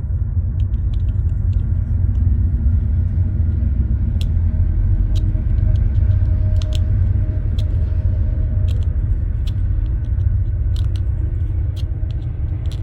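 Steady low rumble under scattered small clicks and scrapes, as a hole in a 3D-printed plastic part is worked open by hand.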